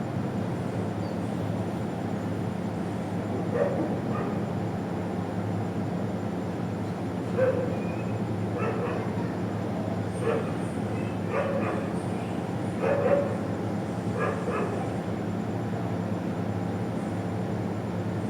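A dog barking in short single barks, about eight in all, spread over several seconds, over a steady background rumble.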